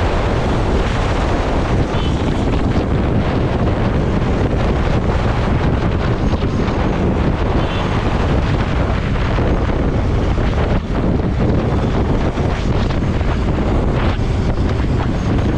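Strong, steady wind noise on the microphone of a camera on a motorcycle moving at speed, with rushing air covering everything else.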